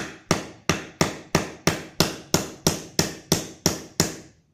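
Hammer striking metal in a steady run of about thirteen even blows, about three a second, each ringing briefly: tapping a needle bearing into a motorcycle's Pro-Link suspension linkage.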